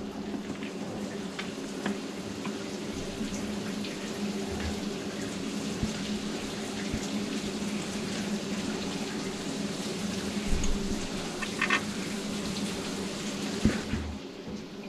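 Water running and splashing, over a steady low hum, with scattered clicks and knocks.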